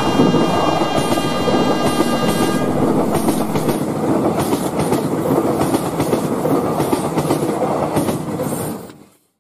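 A train horn sounds one long steady note over the rumble of a passing train and stops about three seconds in. The train runs on with the clickety-clack of wheels over rail joints, then fades out near the end.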